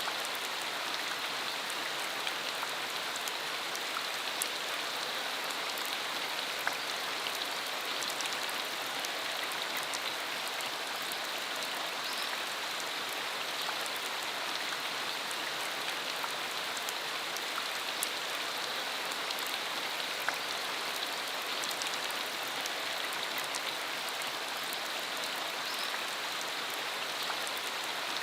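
Steady rain falling, an even hiss with scattered sharper drops.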